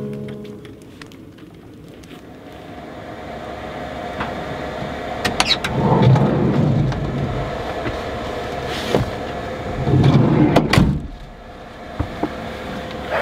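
A motor vehicle engine running with a steady hum, swelling louder twice, with a few sharp clicks.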